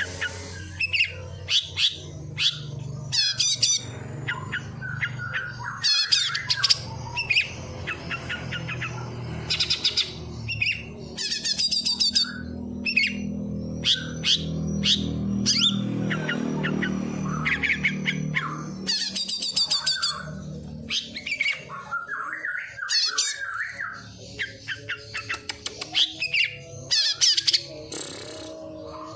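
A mimicking songbird singing a rapid, varied run of chirps, trills and short squawky calls, imitating the calls of sparrows and prenjak (prinia), over steady background music.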